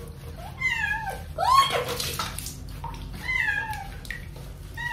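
Domestic cat meowing three times while being soaped and scrubbed in a bath, a fourth meow starting at the end; the second meow, rising and then falling, is the loudest.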